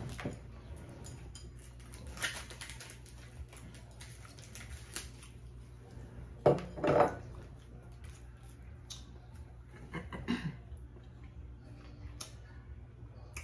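Plates and cutlery clinking and clattering on a tabletop in short, scattered bursts, the loudest about six and a half seconds in, over a steady low hum.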